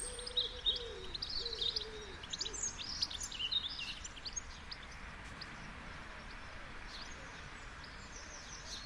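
Several birds chirping, with one bird giving a run of low hooting calls, over a steady hiss of distant surf. The chirping is busiest in the first three or four seconds, and the hooting stops after about two and a half seconds; after that mostly the surf hiss remains, with a few scattered chirps.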